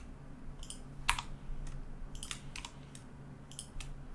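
Computer keyboard keystrokes: about eight scattered key clacks as Blender shortcuts are pressed, the loudest about a second in, over a faint steady low hum.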